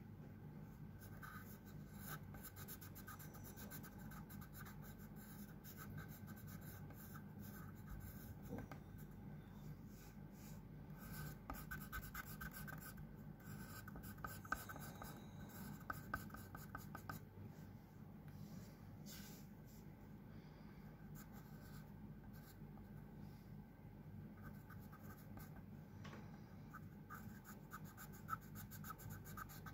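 Black pen scratching on pastel-coated drawing paper in short, irregular strokes as thin lines are drawn, faint throughout, with a steady low hum beneath.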